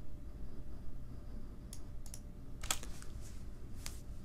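A few scattered computer keyboard clicks over a low room hum, the first a little under two seconds in and a few more close together near the end.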